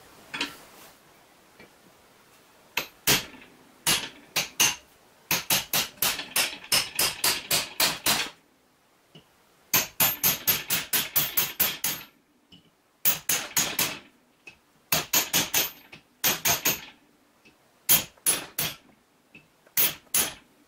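Hammer striking a thin steel strip clamped in a bench vise, bending it over the jaw into a right angle. The blows are sharp metallic taps that come in quick runs of about four a second, with short pauses between the runs.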